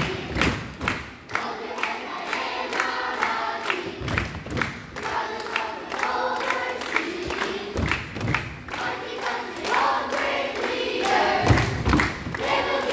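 Children's choir singing a song, with rhythmic hand clapping and a heavy low thump about every four seconds.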